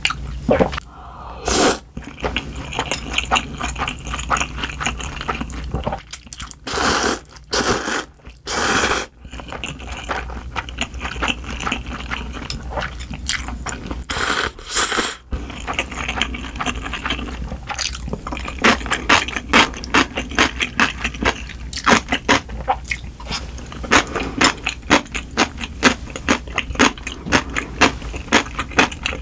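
Close-miked mouth sounds of eating spicy cold buckwheat noodles. There are a few long, noisy slurps in the first half, then steady chewing with quick, wet smacking clicks in the second half.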